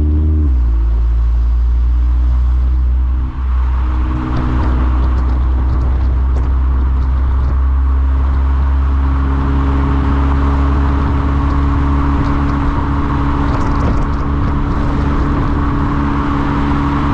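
Volkswagen Golf 7 GTI Performance's turbocharged four-cylinder through a CTS Turbo aftermarket exhaust, a deep, steady drone. The revs drop just after the start and there is a brief lull about three seconds in. After that it runs at steady revs while a hiss of rushing noise builds up.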